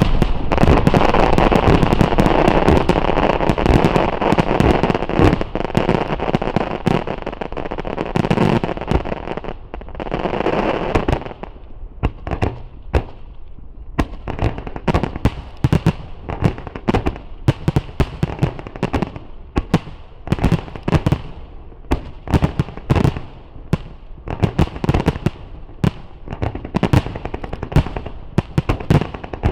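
Japanese starmine fireworks finale: a dense, unbroken barrage of bursts and crackling for the first ten seconds or so, then thinning out to separate bangs in quick succession.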